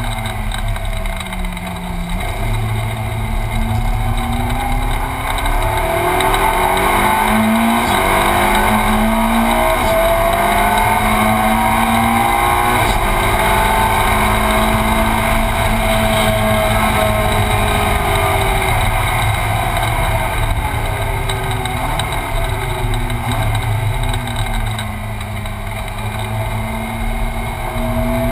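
Ferrari 458 Challenge's 4.5-litre V8, heard from inside the cockpit, driven hard: the revs fall at first, then climb in several rising sweeps through the gears, and fall again later as it slows.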